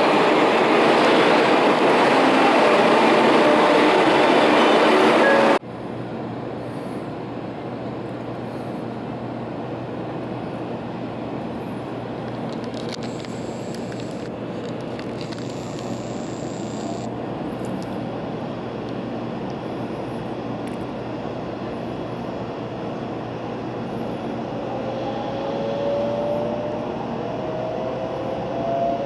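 Running noise of an 800 series Shinkansen heard from inside the car. A loud, even rumble and rush of air drops abruptly about five seconds in to a quieter steady running noise. A rising whine comes in near the end.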